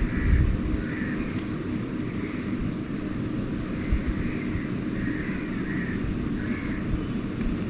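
Steady low rumbling background noise, with faint short chirps recurring every second or so.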